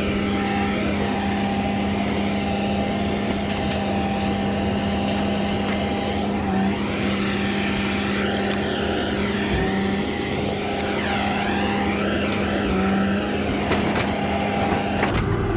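A steady engine hum holding one constant pitch throughout, with a busy mix of noise over it.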